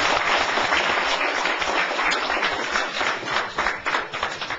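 Audience applauding, a dense wash of clapping that thins into scattered claps near the end and dies away.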